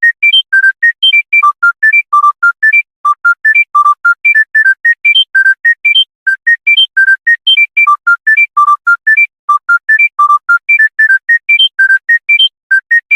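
A monophonic mobile-phone ringtone: a fast melody of short, pure, high-pitched beeping notes, about four to five a second, each note separated by a brief silence and the tune jumping up and down in pitch.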